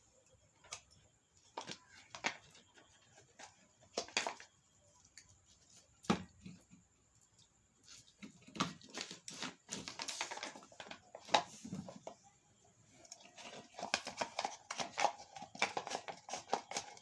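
Handling noise from fitting the upper cover onto a ceiling fan motor: scattered sharp clicks and knocks, then stretches of scraping and rustling in the second half.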